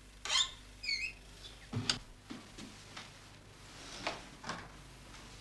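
Things being moved about in a kitchen cupboard: a clatter, a short high squeak about a second in, a heavier knock just before two seconds, then a few lighter knocks.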